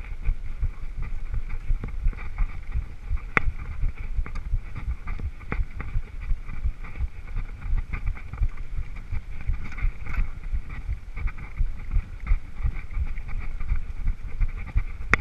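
Wind buffeting the microphone of a mountain biker's action camera while riding over a bumpy grass track, with a steady rattling rumble and a few sharp clicks.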